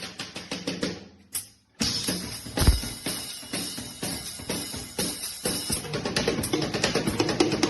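Drum kit being played: a busy groove of bass drum, snare and cymbal hits that stops for about half a second a little over a second in, then comes back in on a heavy bass drum and cymbal hit. Toward the end, sustained pitched notes sound under the drumming.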